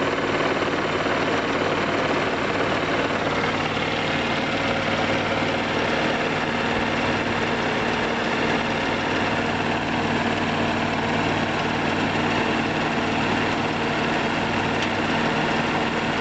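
1990 Chrysler Imperial's engine idling with the A/C compressor engaged, running noisily and steadily while refrigerant is charged in: the compressor's oil has not yet circulated, and it quiets down once it does.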